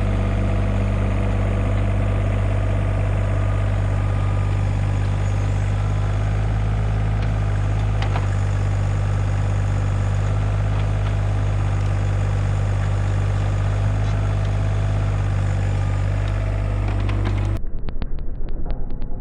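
Hitachi 35U mini excavator's diesel engine running steadily at one even pitch. Near the end it cuts off abruptly, giving way to a different sound that pulses several times a second.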